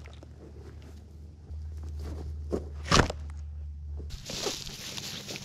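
Handling and work noises: scattered knocks and rustling, with one sharp knock about three seconds in that is the loudest sound. About four seconds in the background changes suddenly to a brighter hiss with rustling.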